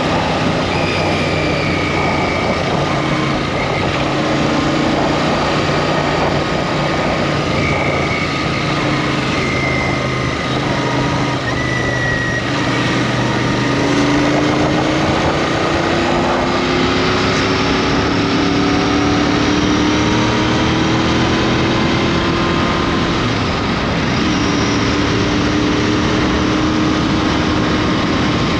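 Royal Enfield Interceptor 650's parallel-twin engine running while riding on the road, with a steady rush of wind and road noise. The engine note climbs slowly over several seconds in the second half as the bike gathers speed.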